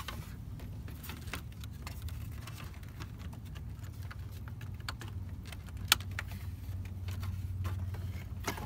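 Small plastic clicks and rattles of dashboard electrical connectors being plugged back in and the gauge-cluster trim panel being handled, with one sharp click about six seconds in. A steady low hum runs underneath.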